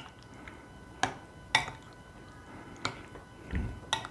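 Four light clicks and taps against a mixing bowl, spread over a few seconds, with a soft low thump near the end, as chicken pieces are mixed by hand into a spice marinade.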